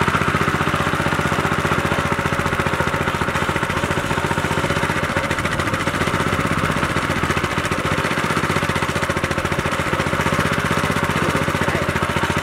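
Small petrol-engine portable water pump running steadily at a constant speed, its engine firing in a fast, even beat.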